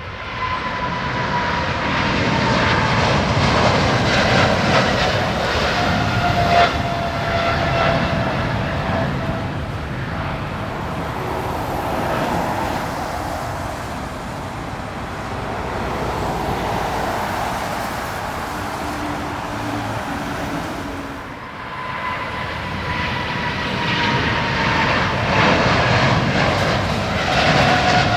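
Jet airliners taking off at full thrust, one after another: a loud, steady engine roar with a high whine that falls slowly in pitch as each aircraft passes. A brief drop in level about three quarters of the way through is followed by the next departure.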